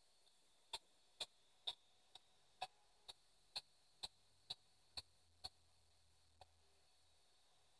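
P-SB7 spirit box sweeping the AM band, played through a small external speaker: faint, short clicks about two a second as it jumps from station to station, with near silence between them. The clicks thin out and stop a little before the end.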